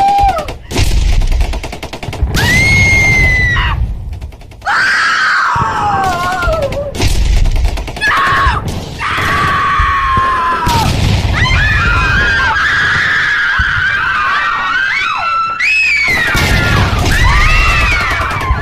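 People screaming and wailing in long, rising and falling cries, several voices overlapping in the second half, over low rumbling and sharp bangs: a war-scene sound effect.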